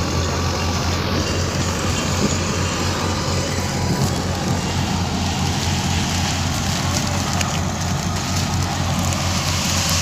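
Harvest machinery's engine running steadily: a constant low drone under an even mechanical noise, with no change in speed.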